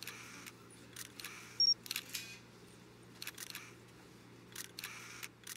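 Camera sound effects: a string of short mechanical clicks and rattles, like a shutter and lens working, with a brief high electronic beep about a second and a half in, over a faint steady low hum.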